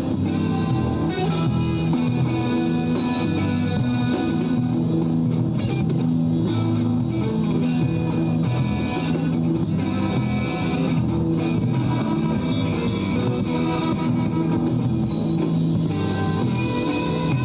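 Instrumental music led by plucked guitar over a bass line, playing at a steady level.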